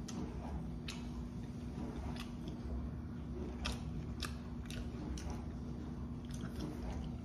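A person chewing and biting food close to the microphone, with a dozen or so short, crisp clicks and crunches at irregular intervals. A steady low hum runs underneath.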